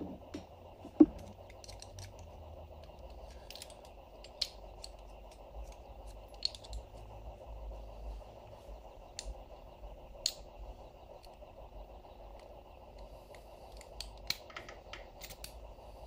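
Scattered metallic clicks and scrapes from reassembling a rear Brembo brake caliper by hand, fitting the pads and pad spring clip back in, with one sharp click about a second in. A faint steady hum runs underneath.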